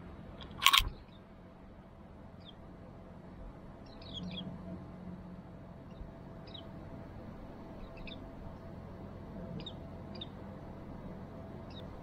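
Japanese white-eyes giving short, thin, high calls, one every second or so. A loud harsh burst of sound comes about a second in.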